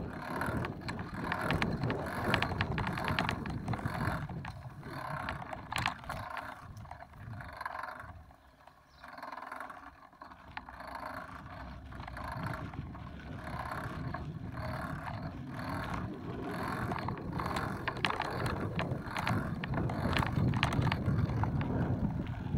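Bicycle riding over grass and then a gravel path: rough tyre noise with frequent rattling clicks. It dips quieter for a moment about eight seconds in.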